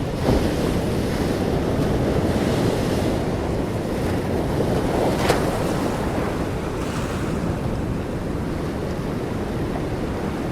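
Open-sea waves washing and splashing against a boat, with wind buffeting the microphone. The wash swells every few seconds, with a sharper splash about five seconds in.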